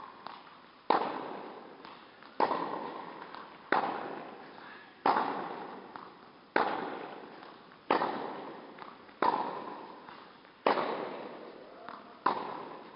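Tennis balls struck with a racket in a steady rally of backhands, a sharp pock about every one and a half seconds, each ringing out with a long echo of an indoor hall. A softer tap comes just before most hits.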